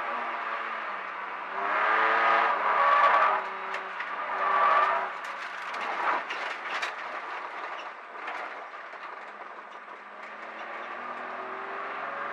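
BMW track car's engine running with its tyres squealing twice in the first five seconds as the rear end slides on cold tyres, then knocks and rattles as the car runs over the kerb and onto the grass, with the engine settling to a lower, quieter note.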